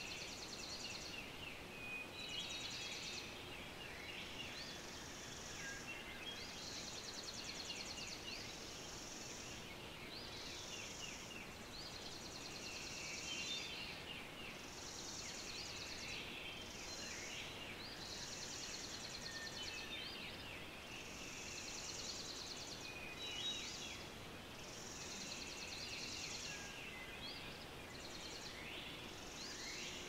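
Dawn chorus of songbirds: a high, buzzy trill repeats every second or two over scattered short rising chirps and whistles, against a faint steady hiss.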